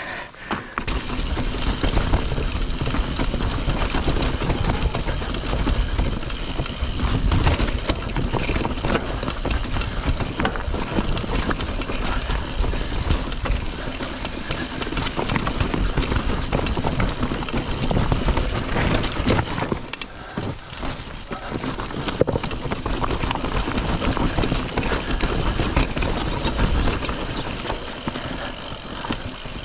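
Mountain bike descending a steep, rocky track: tyres crunching over loose stones and the bike clattering and rattling over rocks and steps, with wind buffeting the microphone. The noise eases briefly about two-thirds of the way in.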